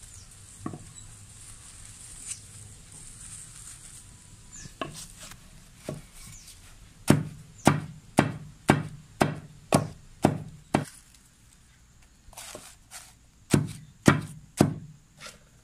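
Wooden pestle pounding cassava leaves in a mortar. It starts with a few scattered knocks, then a steady run of about eight heavy thuds, roughly two a second, and after a short pause a few more strikes near the end.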